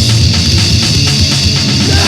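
Grindcore band playing on a 1999 demo-tape recording: loud drum kit and guitar, with no vocals in this stretch.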